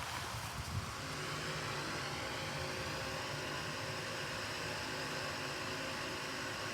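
A steady mechanical drone holding several steady tones, settling in about a second in after a few light knocks.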